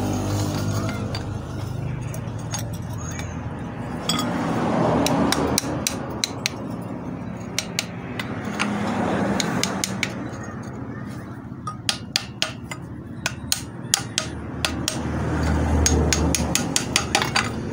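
Hammer tapping a steel drift against a Colt Diesel gearbox bearing to drive it off its shaft: sharp metallic knocks, a few at first and then in quick runs of several a second near the end.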